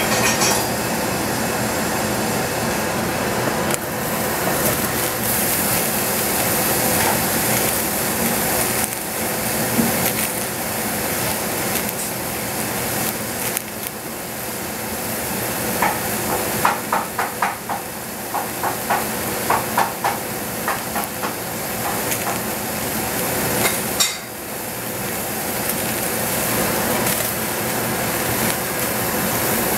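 Knife chopping zucchini on a cutting board: about a dozen sharp, even chops, two to three a second, in the middle, with a single sharper knock a few seconds later, all over a steady hiss.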